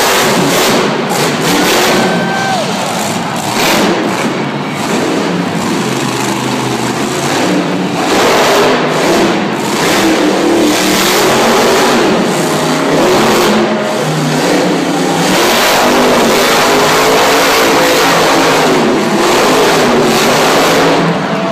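Monster truck engine at high throttle, revving up and down continuously as the truck spins around on the arena floor.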